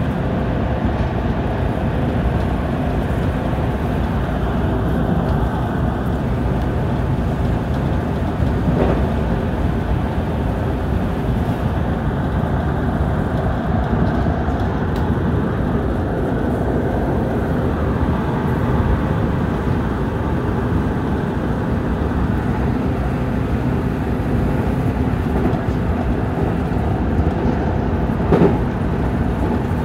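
313 series electric multiple unit running at speed, heard from the front of its motor car: a steady rumble of wheels on rail with a faint steady hum. Two short clacks come through, about nine seconds in and near the end.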